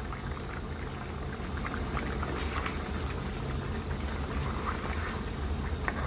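Chicken and potato curry with a thin gravy bubbling at a steady simmer in a nonstick pan, over a constant low hum. A few light clicks come as a spatula stirs through it.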